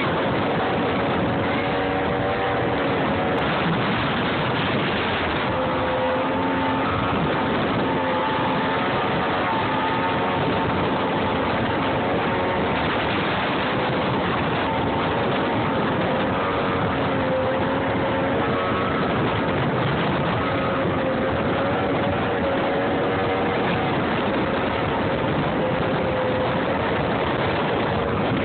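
Motorboat engine running at speed, its pitch wavering up and down a little, under a steady rush of wind and water.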